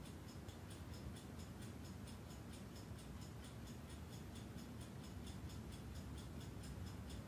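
A clock ticking faintly and steadily, about four ticks a second, over a low room hum.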